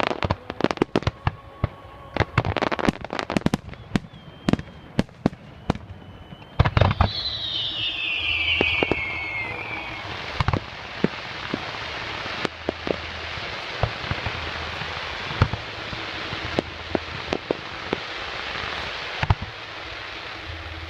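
Fireworks display: a rapid string of bangs and pops, then a loud bang about six and a half seconds in followed by a falling whistle, then a steady crackling hiss with scattered pops.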